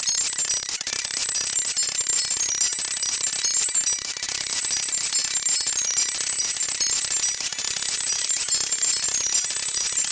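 An Emergency Alert System alarm played back at five times speed: short high-pitched beeps stepping up and down in a pattern that repeats every few seconds, over a dense hiss.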